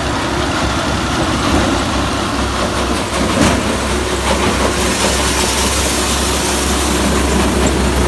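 Tractor-driven Dashmesh wheat thresher running while being fed wheat sheaves: a steady, loud mechanical clatter and rattle over the tractor engine's low drone, a little brighter in the second half.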